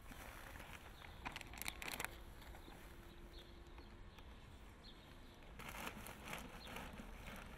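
Gloved hands scooping potting soil out of a plastic bag and dropping it into a planter: soft rustling and crumbling in two short spells, about a second in and again about six seconds in, over quiet garden ambience.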